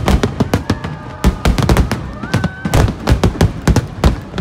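Aerial fireworks shells bursting in a rapid barrage: loud, irregular bangs, several a second, overlapping one another.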